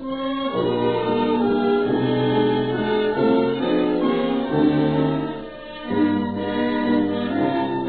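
Background music of slow, held chords that change every second or so, dipping briefly about five and a half seconds in.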